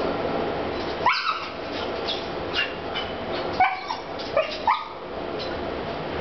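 A run of short, high-pitched yelping calls that slide up and down in pitch, from an animal not in the picture, over a steady background hum.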